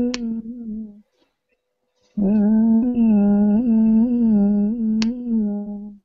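A person humming a low, nearly level note with small pitch wobbles, breaking off about a second in and taking it up again about two seconds in. Two sharp clicks, one near the start and one near the end.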